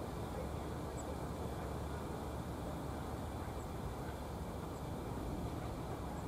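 Diesel freight locomotive running as it slowly leads its train toward the listener: a steady low engine rumble with no horn or bell.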